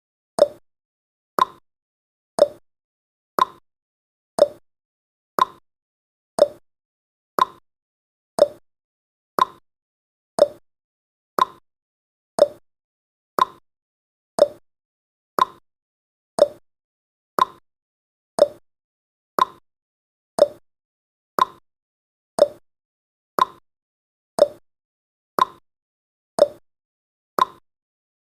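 Clock-tick sound effect of a countdown timer: one short, sharp tick every second, steady and even.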